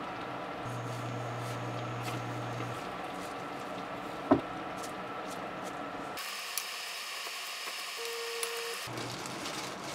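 A metal spoon mixing rice in a glass bowl: soft scraping with scattered light clicks against the glass, and one sharper knock a little past four seconds in, over steady room noise.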